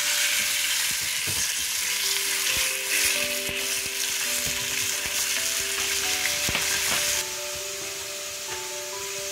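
Raw chicken pieces sizzling in a hot stainless steel sauté pan while a wooden spoon stirs them, knocking and scraping against the pan. The sizzle drops suddenly to a quieter level about seven seconds in. Soft background music plays underneath.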